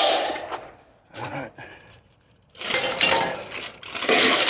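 Scrap metal clattering and clinking as pieces are handled and dropped, with a pause of about two seconds before the clatter starts again.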